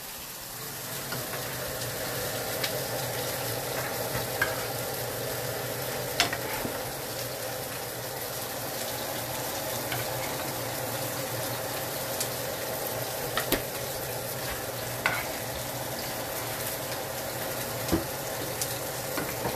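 Honey-garlic-lemon sauce sizzling and bubbling as it reduces around salmon fillets in a nonstick skillet, growing louder about a second in. Occasional light clinks of a metal spoon against the pan as the sauce is spooned over the fish.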